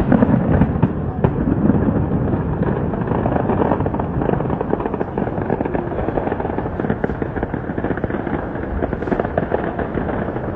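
Fireworks display: a dense, unbroken crackle of many rapid small bursts.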